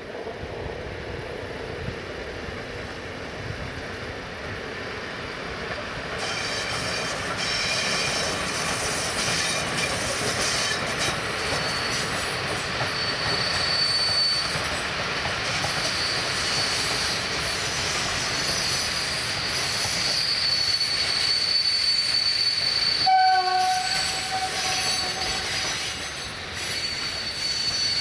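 Passenger train hauled by an EP07 electric locomotive rolling past, with steady wheel-on-rail rolling noise and a thin high wheel squeal running through much of it. A sharp break about 6 seconds in changes the sound.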